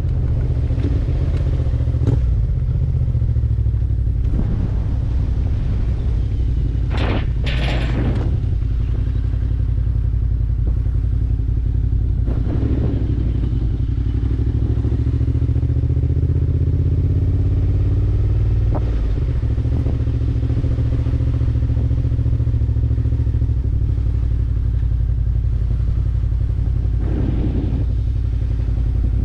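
Suzuki V-Strom 650 XT's 645 cc V-twin engine running under way. Its pitch climbs slowly in the middle and falls away about two-thirds of the way through, as at a gear change or a throttle-off. Two short rushes of noise come about a quarter of the way in.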